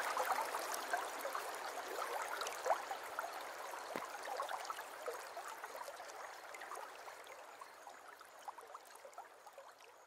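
Water trickling and dripping, with many small drips and splashes, fading out gradually.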